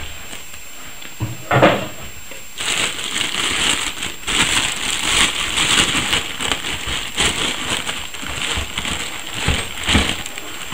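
Clear plastic bag crinkling and rustling as it is handled and pulled out of a moulded pulp-paper tray, with a knock about one and a half seconds in before the steady crinkling starts.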